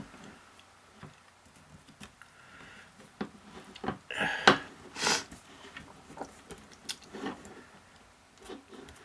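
Vinyl electrical tape being pulled off its roll and handled, with scattered small clicks and rustles and one louder, noisier burst about four seconds in.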